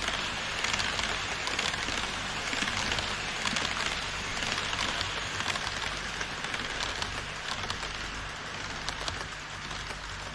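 HO-scale model passenger cars rolling past on Kato Unitrack: a steady rattle of small metal wheels on the rails, full of rapid little clicks at the rail joints, with a low steady hum underneath. It eases slightly near the end as the last car passes.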